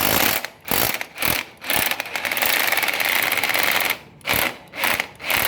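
Makita cordless impact driver run in trigger bursts, its motor and impact mechanism rattling rapidly: a few short squeezes, a longer run of about two seconds in the middle, then more short bursts near the end.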